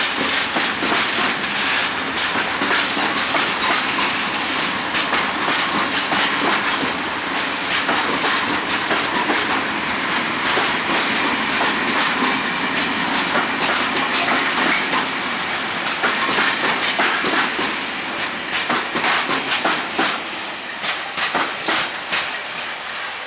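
Freight train hauled by a TEM2 diesel shunter rolling past, its wagon wheels clicking over the rail joints in an uneven stream, easing off a little near the end.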